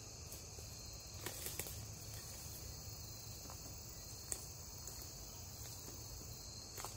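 Steady high-pitched chorus of crickets, with a few faint clicks about a second in, again past the middle and near the end.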